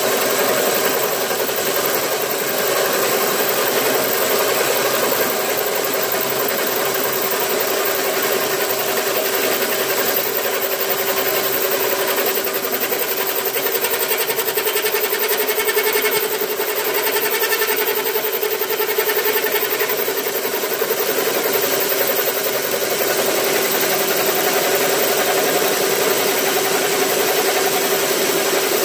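Line boring bar turning and cutting through the weld-built-up bearing bore of a cast-iron windmill head. Its drive runs steadily, with a constant hum under the cutting noise.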